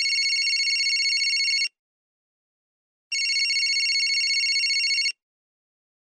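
Telephone ringing: two rapid, trilling rings, each about two seconds long, with a pause of about a second and a half between them.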